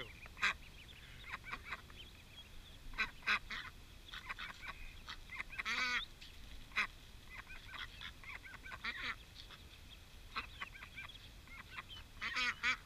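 Domestic ducks quacking in short, scattered calls, with one longer call about six seconds in and a quick run of calls near the end.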